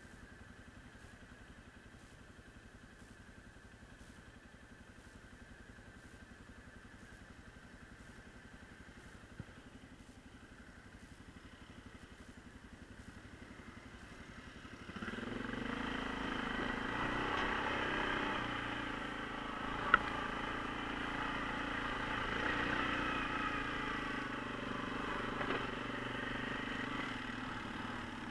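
ATV engine running quietly at idle, then about halfway through it picks up and runs under throttle as the quad climbs. A single sharp knock comes a few seconds after it gets going.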